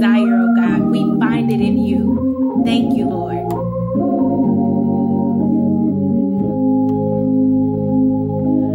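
Organ music: slow, held chords that change every second or two, with a voice over the first few seconds.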